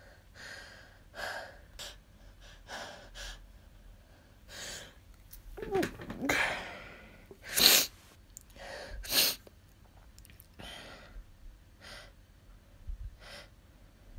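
A person in a sneezing fit from a tickle in the nose: a run of short breaths and sniffs, a voiced gasp about six seconds in, then two sharp sneezes about a second and a half apart, the loudest sounds, followed by more sniffles.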